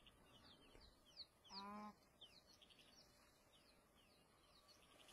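Faint chirping of small birds: quick, short, high falling notes repeated a few times a second. A brief low hum comes in about a second and a half in.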